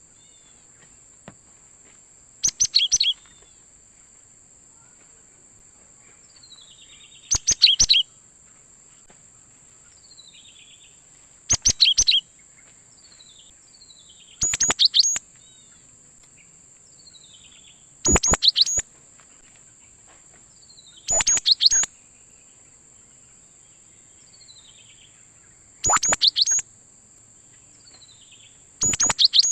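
Cinereous tit (gelatik batu) singing: short loud bursts of a few rapid, sharp whistled notes, repeated every three to four seconds, with fainter falling notes in between.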